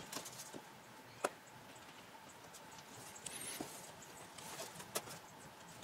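Faint handling sounds of nylon trimmer line being stuffed into the rubber gasket around a window glass: light rustling and scratching, with a sharp tick about a second in and another near the end.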